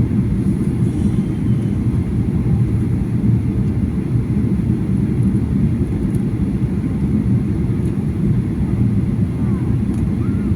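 Steady low rumble of airliner cabin noise in flight, the engines and the air rushing past the fuselage, at an even level throughout.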